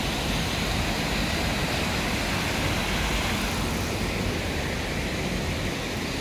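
Mountain stream rushing, a steady, even hiss of running water.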